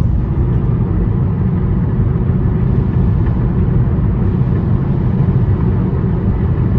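A car driving through a road tunnel, heard from inside the car: a steady low rumble of engine and tyre noise.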